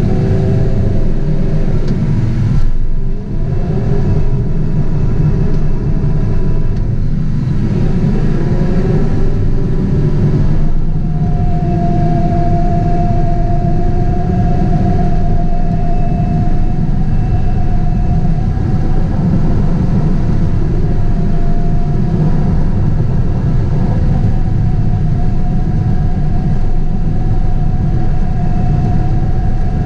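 Caterpillar 973C track loader's diesel engine running under load, heard from inside the cab. A whine over the engine shifts in pitch during the first ten seconds or so, then holds steady.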